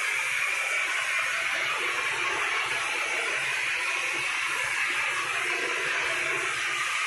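Cement mortar spray gun hissing steadily as compressed air blows a stream of mortar onto a wall.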